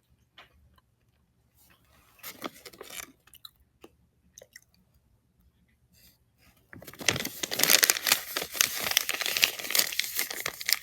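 Crunching and crinkling close to the microphone: a short burst about two seconds in, then a loud, dense crackle of many small sharp sounds from about seven seconds in.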